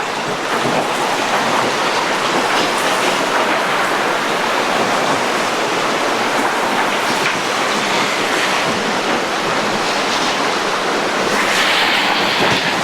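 Shallow, fast-moving river water rushing over rocks in low-water rapids: a steady rush that brightens briefly near the end.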